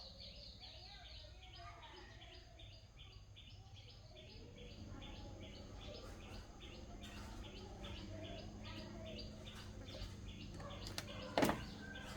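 A bird chirps over and over, about three short high chirps a second, over a faint low hum. A sharp click comes near the end.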